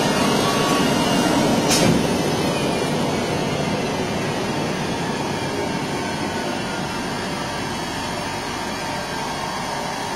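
Flatbed CNC fabric cutter running with a steady machine noise. There is one sharp knock a little under two seconds in, and the noise then slowly gets quieter.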